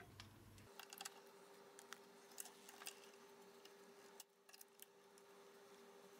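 Faint, scattered clicks and taps of clear acrylic hold-down clamps, nuts and threaded studs being handled and fitted by hand on a mill table, over a steady faint hum.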